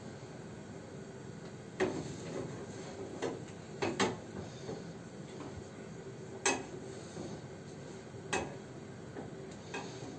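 Metal fork knocking and scraping against a frying pan as small pancakes are lifted and turned, about six or seven sharp clinks spread out, over a faint steady hum.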